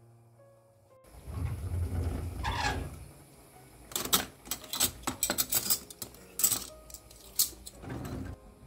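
A kitchen drawer sliding open with a low rumble, then stainless steel cutlery clinking and rattling in the drawer tray as spoons are picked out, in a quick run of sharp clinks over about four seconds.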